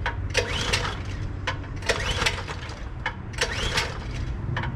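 Recoil pull-starter on a Generac gas pressure washer's small engine being yanked three times, about one pull every second and a half. Each pull is a click and a rising-then-falling whirr as the engine cranks over without catching, which the owner puts down to old gas left in it over the winter. A steady low rumble runs underneath.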